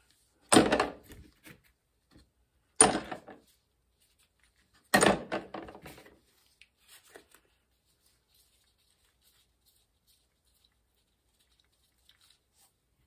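Three loud clunks about two seconds apart, each with a short ringing tail, then faint small ticks.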